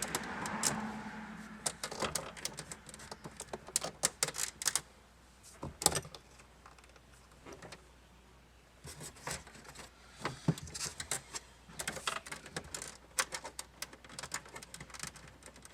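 Screwdriver and small plastic trim clip clicking and scraping as a stubborn dashboard clip is pried and spun loose: irregular clusters of sharp clicks, with a quieter pause about five seconds in before the clicking resumes.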